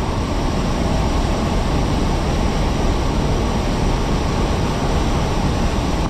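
Swollen stream cascading over rocks in a loud, steady rush of white water.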